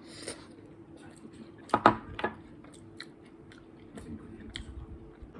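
A person chewing and crunching food at close range, with light clicks scattered throughout and a few sharp, louder clicks about two seconds in.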